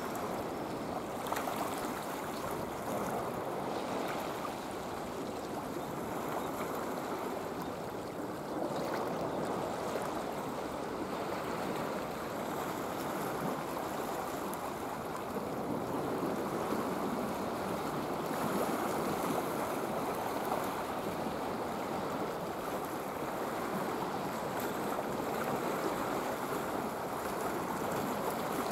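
Sea water washing against the shore rocks, a steady rush without breaks.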